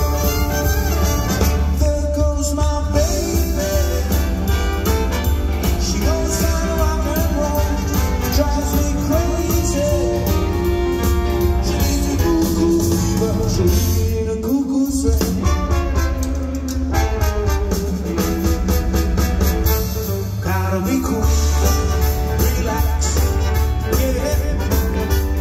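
Live swing and rock 'n' roll band playing, with a singer, guitar and a heavy, steady bass. The bass drops out briefly twice, about midway and again later.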